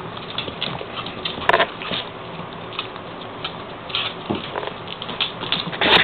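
Puppies and wolves play-fighting: a run of short, sharp noises over a steady background, the loudest about a second and a half in, about four seconds in and near the end.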